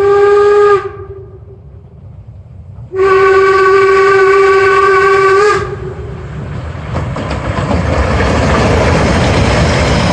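Narrow-gauge steam locomotive's whistle blowing twice: a blast that ends about a second in, then a longer one of about two and a half seconds. From about seven seconds in, a loud rushing noise of the working train follows.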